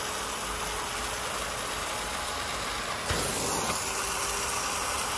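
US STEAM Blue Evolution S+ commercial steam vacuum running with steam and vacuum on together: a steady hiss of steam from the extraction nozzle over the drone of the vacuum motor. A brief click comes about three seconds in, after which it runs a little louder.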